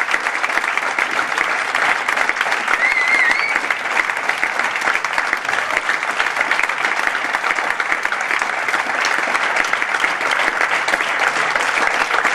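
Audience applauding, a dense steady clapping. A short, high, wavering cry rises above the clapping about three seconds in.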